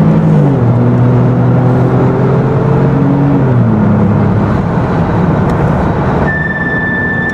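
Porsche 996 Carrera 2's flat-six engine pulling hard, heard from inside the cabin, with the Tiptronic automatic shifting up twice: the engine note drops about half a second in, climbs, and drops again about three and a half seconds in. About six seconds in, a steady high whine starts.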